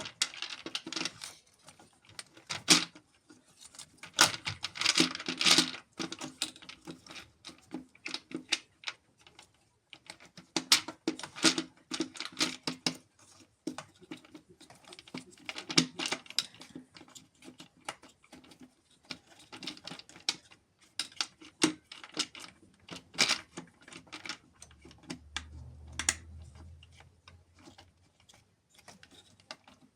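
A string of irregular light clicks and small clattering knocks from hard objects being handled, with a faint low hum briefly near the end.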